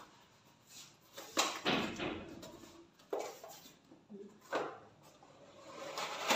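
Cardboard packaging being handled: a few short knocks and scrapes as a flat cardboard box is turned over in the hands.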